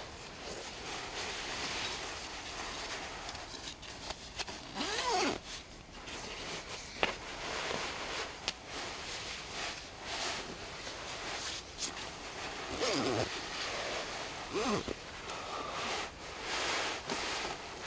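Sleeping bag rustling and scuffing as a person climbs in and settles down on a suspended bed, with several quick sweeping zip pulls as the bag is zipped up.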